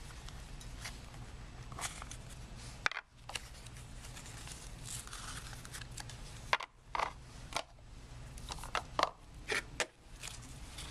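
Rustling and scattered sharp clicks of packaging being handled as a sealed trading-card box is opened.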